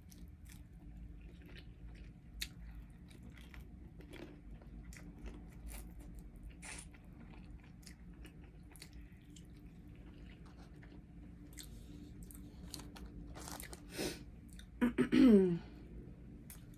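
Close-miked chewing and mouth sounds of someone eating, with small crunches and clicks between bites. About 15 s in, a brief, louder voiced sound from the eater falls in pitch.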